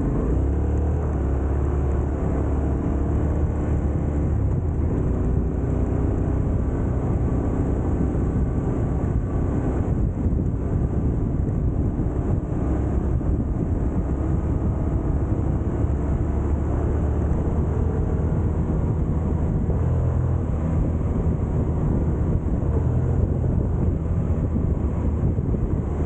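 Yamaha Ténéré 700's parallel-twin engine running steadily under way, its note shifting a little as the throttle changes.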